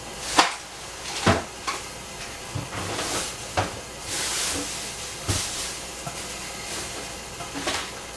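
Covered pans cooking on a gas stove over a slow fire: a steady hiss of steam and sizzling, swelling about four seconds in, with about eight sharp pops and knocks scattered through it.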